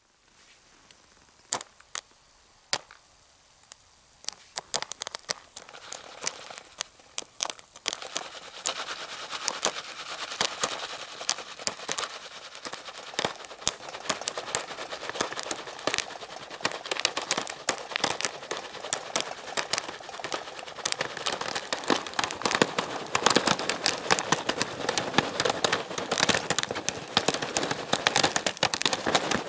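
Jiffy Pop popcorn popping in its foil pan over a small camp stove flame. A few scattered pops start about a second and a half in, then build into rapid, steady popping with a rattling hiss as the pan is shaken.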